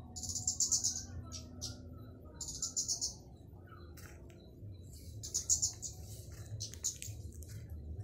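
Flowerpecker (burung cabai, kemade) calling in short, fast trills of high, thin ticking notes. There are four bursts of roughly half a second to a second each, with a few single chips in between.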